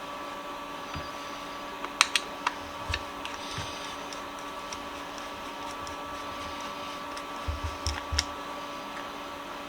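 Metal hand tools and vise parts being handled on a workbench: a few sharp clicks about two to three seconds in, and soft knocks with a click near the end. A steady background hum runs throughout.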